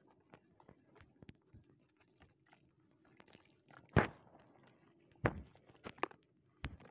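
Dry, crumbly chunks crushed by hand into wet, muddy sand in a plastic basin: soft gritty crackling, with a loud crunch about four seconds in, another a little over five seconds in, and two fainter ones near the end.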